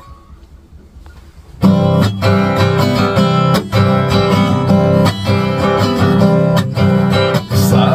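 Acoustic guitar strummed in a steady rhythm of chords, starting suddenly about a second and a half in after a short quiet.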